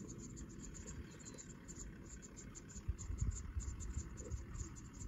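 Crickets chirping in fast, even pulses, about four to five a second, over a steady low rumble. A few low thumps come in the second half.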